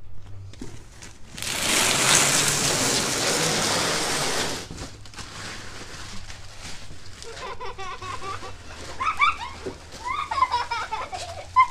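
Crumpled Christmas wrapping paper rustling and crinkling loudly for about three seconds as armfuls are gathered up, then quieter crinkling.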